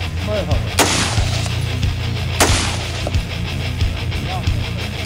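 Rifle shots about every second and a half, sharp cracks with a short echo, over loud background music with a steady drum beat.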